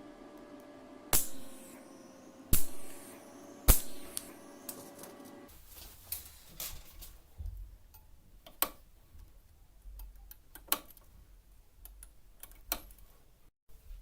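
Three sharp knocks about a second apart, each with a short ringing tail, over a steady hum that stops about five seconds in; after that, scattered lighter clicks and taps.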